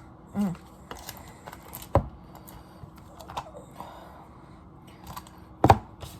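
Food packaging and containers being handled and set down on a table: light clicks and rustling, with two sharper knocks, one about two seconds in and a louder one near the end.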